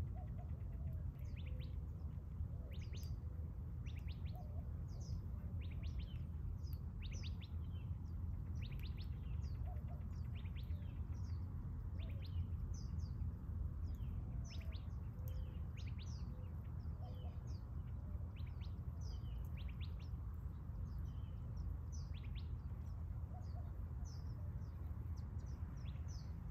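Small birds chirping, several short high calls a second throughout, over a steady low rumble.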